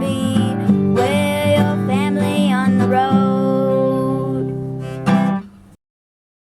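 Outro song: strummed acoustic guitar with a singing voice. It fades briefly and then cuts off suddenly near the end.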